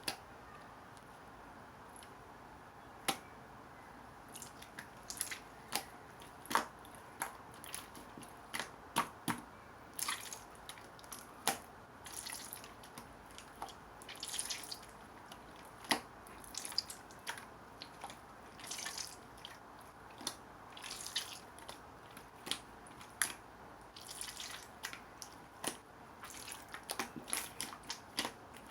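Black marbled slime being squeezed and poked by hand, giving many irregular wet clicks and short crackly pops.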